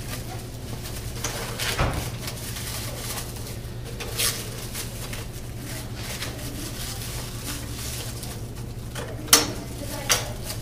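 Hands handling the printhead and ribbon spindle mechanism of a Zebra R110Xi4 label printer while loading ribbon: a few scattered sharp clicks and knocks, the loudest near the end, over a steady low hum.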